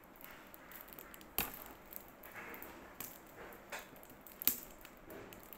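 Faint scratching of fingers picking at the plastic wrap around a stack of trading cards, with a few small clicks spread through it.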